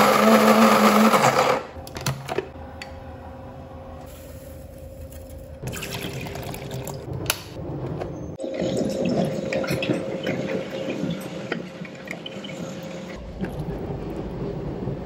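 De'Longhi electric coffee grinder running on coffee beans, cutting off about a second and a half in. Then quieter clicks and handling, the gurgle and splash of a drip coffee maker brewing, and coffee being poured into a ceramic mug near the end.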